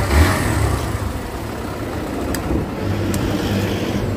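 Kawasaki Barako 2 motorcycle's single-cylinder engine running at a steady idle, a rough low rumble, with a couple of light clicks in the second half.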